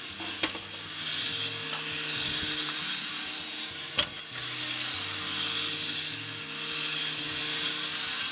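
Countertop blender motor running steadily, blending passion fruit pulp with coconut water into a thin juice. Two sharp knocks cut through it, a small one about half a second in and a louder one about four seconds in.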